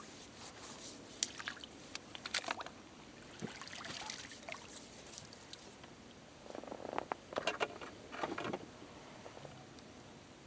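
Handling of feeder fishing tackle: scattered clicks and rattles of the rod, reel and cage feeder, with small splashes and drips as the feeder is lifted out of the water. The clicks come in two busy spells, in the first few seconds and again past the middle.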